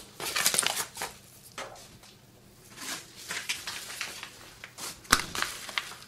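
Paper mailing envelopes rustling as they are handled on a workbench, in two stretches, with a single sharp tap about five seconds in.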